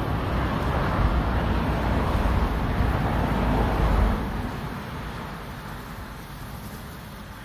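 Road vehicle passing: a noise heavy in the low end that swells, is loudest from about one to four seconds in, then fades away.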